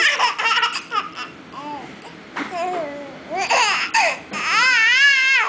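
Baby vocalizing with high-pitched laughs and squeals in short bursts, ending in a long, wavering high-pitched squeal of about a second.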